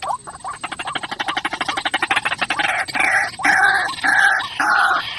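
White-breasted waterhen calling. A fast run of rapid pulsed notes builds up and leads into loud, harsh calls repeated about twice a second from about three seconds in.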